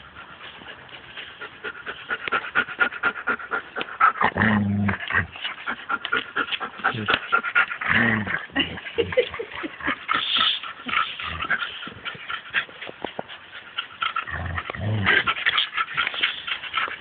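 Two dogs playing tug of war over a toy, growling in a few short bouts amid rapid scuffling.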